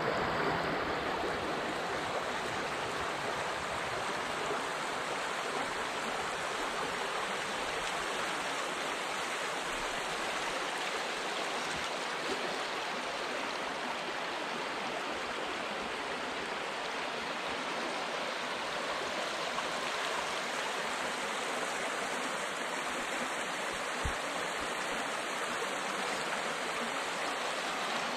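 Rain-swollen creek running high, a steady, even rush of flowing water.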